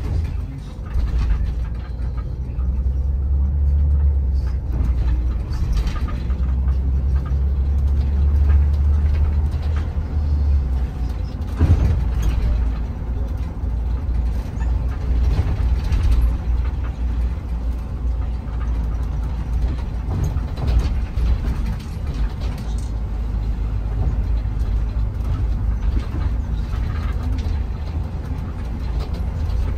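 Parks Canada shuttle bus on the move, heard from inside: a low, steady rumble of engine and road, heaviest for the first ten seconds or so, with occasional knocks and rattles.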